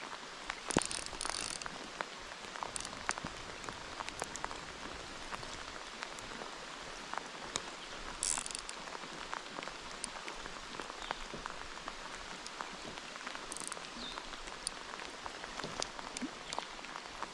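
Steady rain falling, an even hiss with many small scattered ticks of drops striking.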